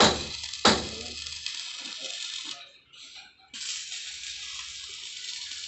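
Two sharp knocks, then the steady crackling hiss of arc welding on steel, which breaks off for about a second midway and starts again.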